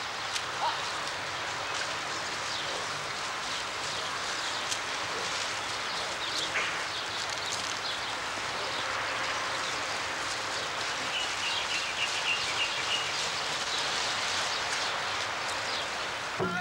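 Steady rain-like hiss with scattered ticks, and a short run of high chirps about eleven seconds in.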